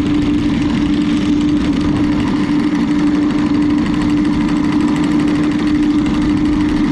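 Maxwell electric anchor windlass paying out anchor chain over the bow, a steady motor hum of unchanging pitch over a rough rumble.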